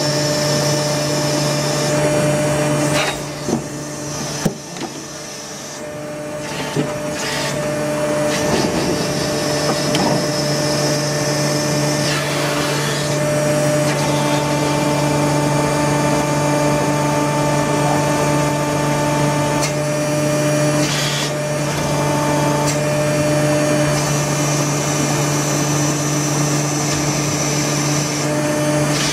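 Injection moulding machine running a test cycle of a two-cavity PVC 90° elbow mould: a steady mechanical hum. The level drops, with a few sharp clicks and knocks, between about three and eight seconds in, and there are short hissing bursts about twelve and twenty-one seconds in.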